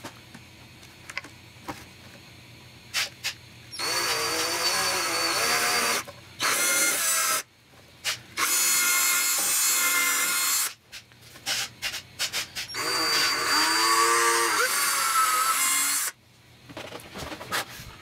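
Handheld power drill boring small holes into plywood in four bursts of one to three seconds, its motor whine rising and falling in pitch. A few light clicks of handling come before the first burst.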